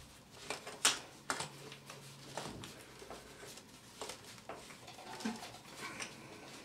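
Brass compression nut on a stop tap being turned up by gloved hand onto the pipe fitting: faint scattered clicks and light rubbing, the sharpest click a little under a second in.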